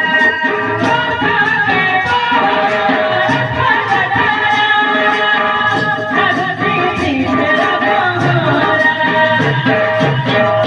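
Devotional kirtan music: singing over a steady beat of drum and percussion, with held instrumental tones.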